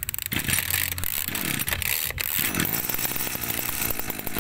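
Small petrol engine of a Makita brush cutter running steadily, a fast even buzz of firing pulses.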